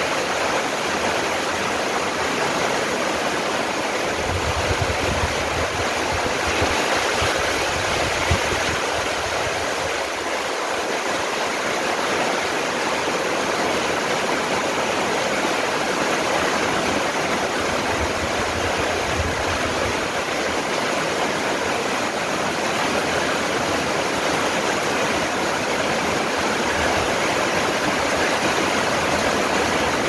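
Steady rain falling on trees and garden foliage, with low rumbles now and then.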